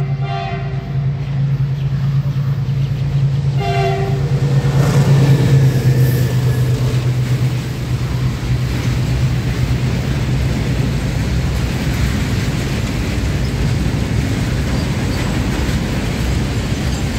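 Electric locomotive hauling a freight train of open box wagons sounds its horn twice, a short blast at the start and another about four seconds in, over a steady low drone as it draws near. After about five seconds the drone gives way to the long even rolling noise of the wagons' wheels passing on the rails.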